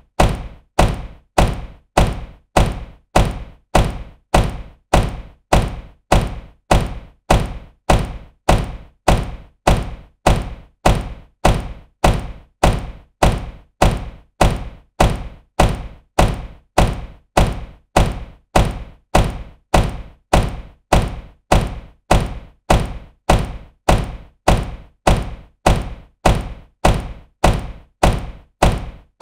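Supercar door shutting with a solid thunk, the same slam repeated over and over, a little under two a second, each one dying away quickly.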